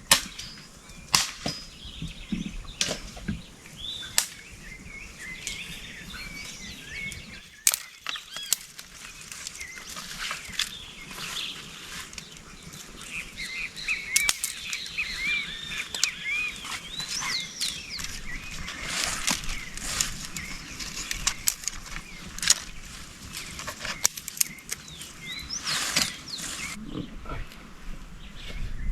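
Birds chirping and singing, with scattered sharp clicks and knocks of things being handled and moved about.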